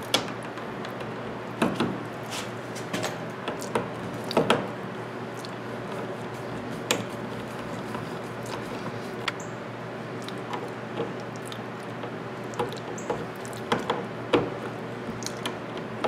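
Hand screwdriver driving the mounting screws of a 20 amp duplex outlet into a plastic electrical box: scattered, irregular clicks and scrapes of the tip on the screws and the outlet's metal strap.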